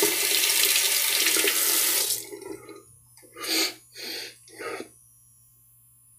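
Water running from a tap into a bathroom sink, cut off about two seconds in. Three short swishing splashes follow.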